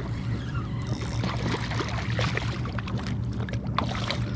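Water splashing and dripping, with many small clicks and knocks, as a just-caught redfish (red drum) is handled at the kayak; the ticking is thickest in the middle. A steady low hum runs underneath.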